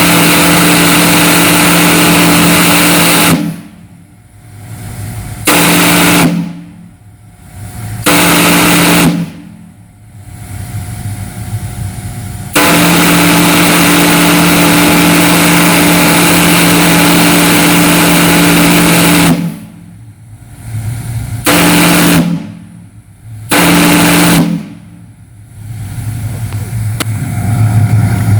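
Crosby 12-inch three-note single-bell chime steam whistle blowing in blasts that start and stop abruptly. A blast ends a few seconds in, then come two short blasts, a long blast of about seven seconds, and two more short blasts. Its balanced valve is all or nothing, so each blast sounds at full strength from the start.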